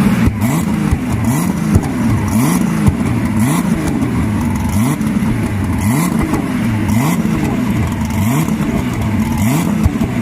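Turbocharged car engine revved over and over during a burnout. Its pitch climbs and drops back about once a second.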